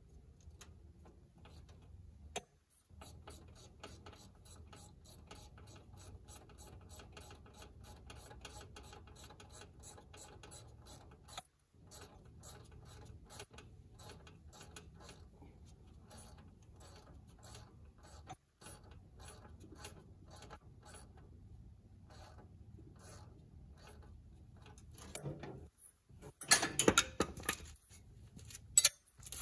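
Ratchet wrench clicking steadily, several clicks a second, as a bolt is turned. Near the end comes a short burst of louder knocks and clatter.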